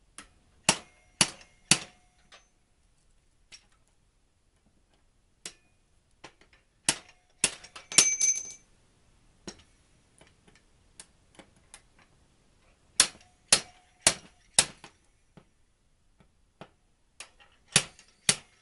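Slide hammer, hooked to locking pliers gripping screws driven into an oil seal, being slammed back again and again to pull the seal from an outboard gearcase's bearing housing. Sharp metallic clacks come in bursts of three or four blows about half a second apart, and one burst briefly rings.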